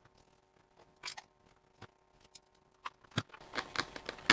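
Small metal screws and a hex driver clicking and tapping against a carbon-fibre RC car chassis as screws are tried in a servo mount: a few isolated clicks, then a quicker run of clicks near the end.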